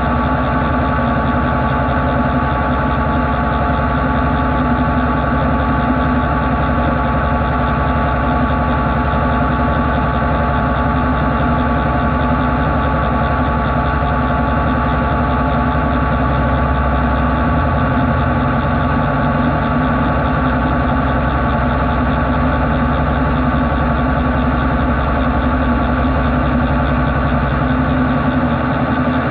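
CNC machining centre making a long-reach cut in cast iron with a vibration-dampened boring bar, the spindle turning at 616 rpm. It is a steady machine drone with several held tones, and the low hum shifts partway through.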